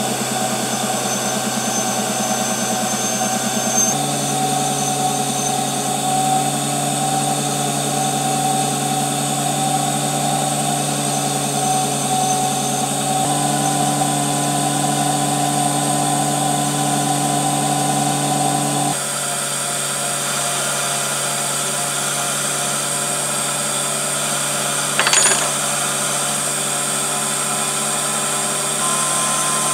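Unimat SL miniature lathe running, its small motor giving a steady hum while a cutting tool turns a metal part, the hum's pitch shifting slightly a few times. A short, sharper sound breaks through near the end.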